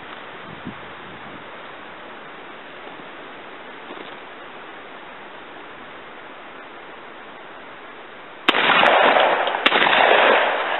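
Winchester 1400 semi-automatic shotgun fired twice in quick succession, about a second apart, each blast trailing off over about a second. Before the shots there is only a steady outdoor hiss with a couple of faint clicks.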